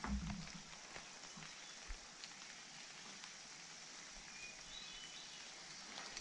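Steady rain falling, with a low thump right at the start and a few faint drop-like ticks.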